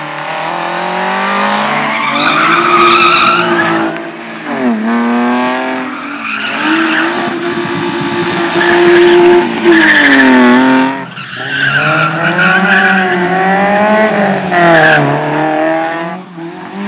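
Rally car engine revving hard, its pitch climbing and dropping again and again as the driver goes through the gears and lifts off, with tyres squealing and skidding.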